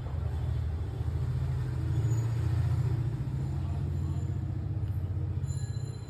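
Low engine rumble of a road vehicle, swelling about two seconds in and easing near the end.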